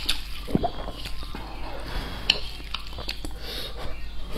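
Close-miked wet chewing and mouth smacks of a person eating saucy black-bean fire noodles, with scattered short clicks. More noodles are being slurped in near the end.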